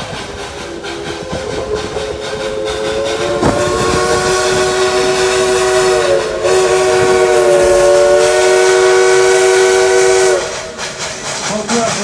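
Steam locomotive whistle blowing one long blast of several notes at once. It starts about three and a half seconds in, wavers in pitch briefly midway, and cuts off shortly before the end, over the steady running noise of the train.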